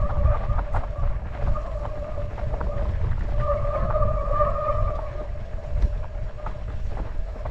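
Mountain bike disc brake squealing under braking: a steady tone that swells for about two seconds in the middle, with scattered clicks from the bike. Heavy wind rumble on the microphone underneath.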